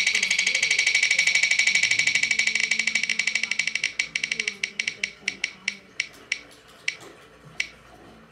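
Spinning name-picker wheel ticking through a tablet's speaker: a fast run of clicks that slows about halfway through into separate ticks, spaced further and further apart, as the wheel coasts to a stop.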